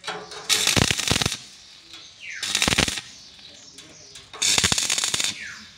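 Stick arc welding on an iron gate frame: three short bursts of sharp crackling, each under a second, about two seconds apart, as tack welds are laid.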